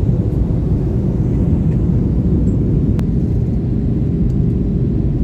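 Steady cabin rumble of a jet airliner in flight, heard from inside the cabin at a window seat over the wing, with a faint steady hum above it. A single sharp click about three seconds in.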